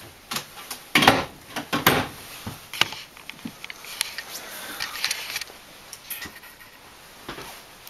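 Handling noise from a camera being picked up and moved about: irregular knocks, clicks and rustles, loudest about a second in and again near two seconds.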